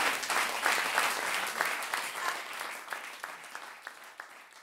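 Audience applause after a live song, fading away and thinning to a few separate claps near the end.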